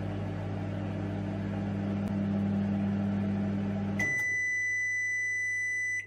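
Sharp convection microwave oven running with a steady low hum that stops about four seconds in as the timer reaches zero. A single long, high beep follows for about two seconds, signalling that the cooking has finished.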